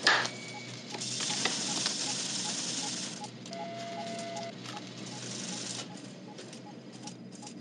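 A red sealed authenticator card ripped open with one short, sharp tear. A steady hiss follows, with faint electronic ticks about three times a second and a brief steady beep near the middle from the launch-control consoles.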